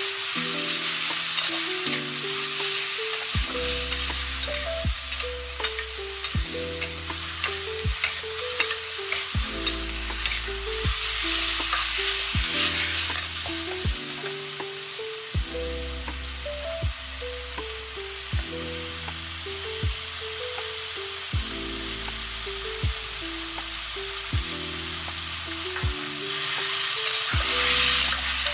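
Shredded potatoes sizzling in a hot wok as they are stir-fried, with scattered clicks and scrapes of the spatula stirring them.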